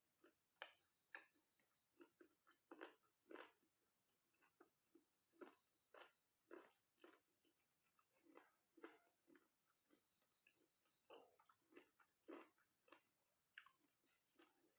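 A person chewing and biting mouthfuls of chicken curry and rice up close: a steady run of short, wet mouth smacks and clicks, about one or two a second and fairly quiet.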